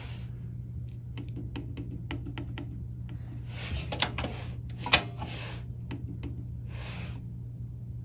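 Sony TC-K65 cassette deck's transport keys and cassette door clicking under a hand, irregular sharp clicks with a few short soft rustles, over a steady low hum. No motor runs: the capstan is not turning.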